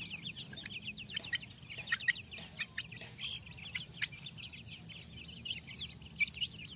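Young chickens, about five weeks old, peeping continuously: a dense run of short, high-pitched chirps, several a second.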